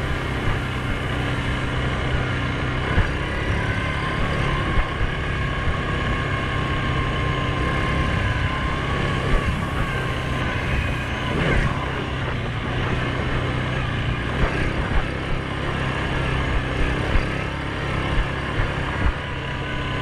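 Suzuki KingQuad 750 ATV's single-cylinder engine running steadily under way on a dirt trail, with scattered sharp knocks and rattles as the machine goes over bumps.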